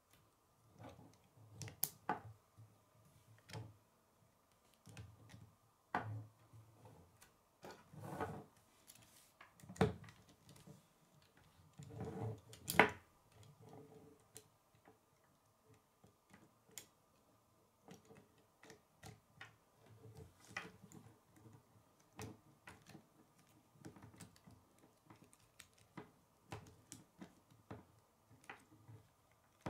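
Plastic K'nex rods and connectors clicking and snapping together by hand: faint, irregular clicks with a few louder knocks.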